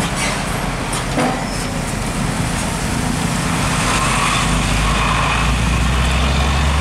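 Heavy diesel trucks running through a bend with passing road traffic: a steady low engine drone that grows louder about two-thirds of the way through as another truck comes closer.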